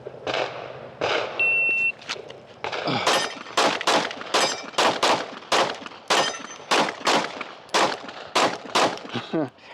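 A shot-timer start beep, then about a second and a half later a fast string of 9mm pistol shots from a compensated Glock 45, about three a second, some of them ringing the steel target.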